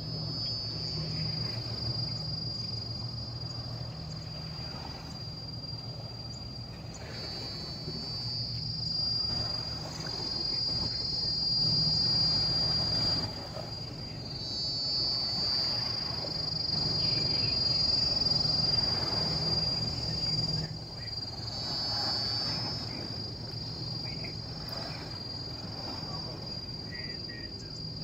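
Insect buzzing: a steady, high-pitched drone that swells with a wavering start about every seven seconds. Beneath it is a broad rushing background noise and a low hum.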